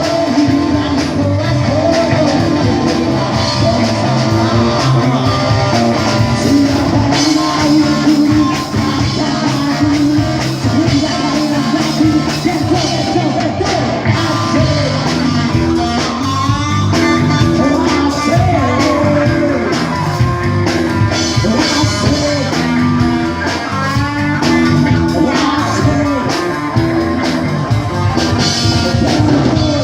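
A band playing a rock song with guitar, and a voice singing over it.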